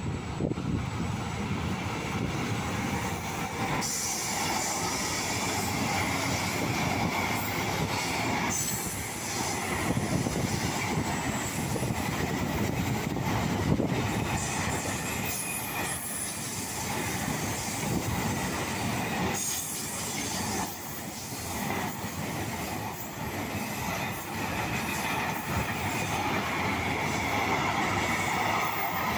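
Container freight train's flat wagons rolling past on the rails with a steady rumble of wheels. From about four seconds in, a high metallic squeal of wheels against rail rides on top of it.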